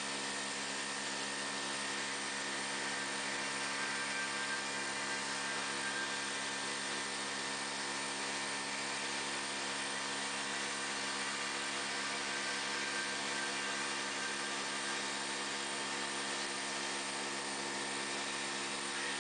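CNC milling machine spindle running steadily while its end mill routes a circle in a plywood spool blank, with the dust-collection vacuum running alongside: a constant hiss carrying several steady hum tones.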